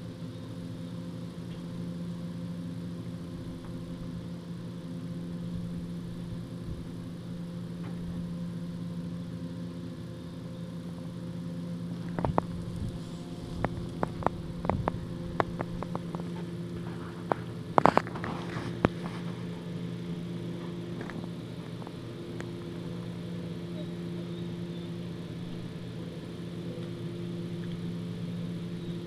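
A husky chewing a whole raw chicken, crunching through its bones: a cluster of sharp cracks and clicks about halfway through. Under it runs a steady engine-like hum.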